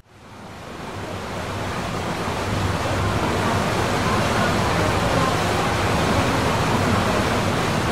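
Steady rushing of water churning in the wake behind a moving boat's stern, fading in over the first couple of seconds.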